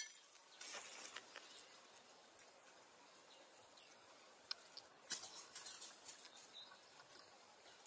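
Near silence: faint outdoor ambience, broken by a few brief soft crackles, one cluster about a second in and another about five seconds in.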